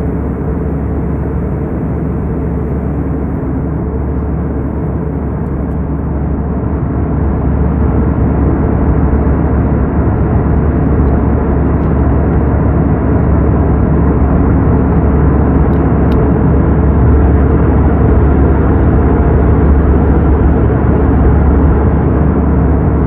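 Steady in-flight cabin noise of a jet airliner: a deep, even rush of airflow and engine noise, growing a little louder about a third of the way in.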